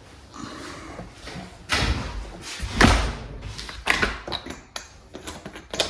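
A door being worked and closed, giving a few separate thuds and knocks, the loudest about three seconds in.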